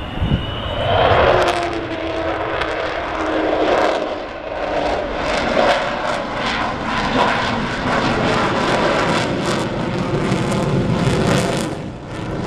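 Avro Vulcan's four Olympus turbojets at high power, giving the famous Vulcan howl. The howl slides down in pitch about a second in, then settles into a loud, rough, crackling jet roar.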